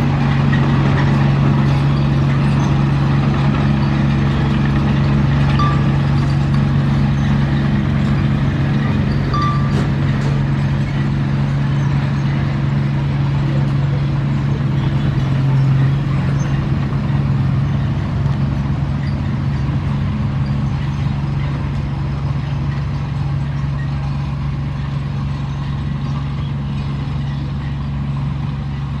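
Bulldozer's diesel engine running steadily, a constant low drone that eases off slightly near the end.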